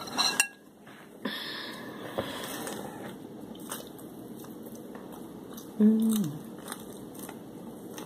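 A person eating fried shrimp by hand: light clicks near the start and soft chewing, with a short hummed "mm" that drops in pitch about six seconds in.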